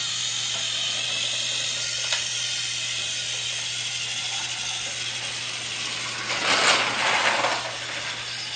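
Battery-powered Thomas toy engine's small motor and plastic gears whirring steadily as it runs, with a single click about two seconds in and a louder burst of noise for about a second near the seven-second mark.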